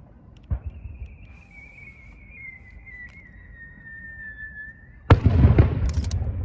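Aerial firework shell launched from its mortar with a thump, trailing a thin whistle that slowly falls in pitch as it climbs for about four and a half seconds, then bursting overhead with a loud, deep boom about five seconds in, followed by a few sharp crackles.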